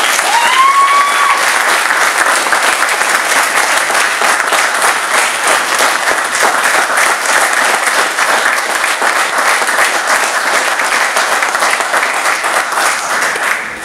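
Audience applauding steadily, dense clapping throughout, with one short rising call from the crowd about half a second in. The clapping stops abruptly at the end.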